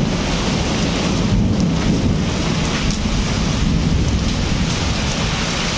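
Heavy rain pouring down during a hailstorm: a steady hiss with a deep, uneven rumble underneath.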